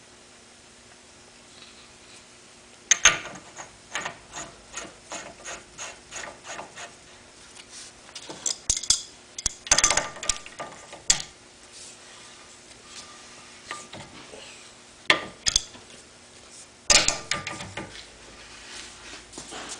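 Adjustable wrench clicking and scraping against the brass cap of a chemical pump held in a vise, as the cap is worked tight. The quick metallic clicks come in runs of about three a second, starting about three seconds in.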